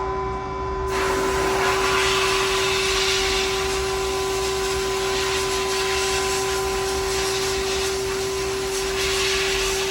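Sandblast cabinet running: a steady machine whine, then about a second in the blast gun opens with a loud, steady hiss of air and abrasive, roughening deck plate pieces so powder coat will stick.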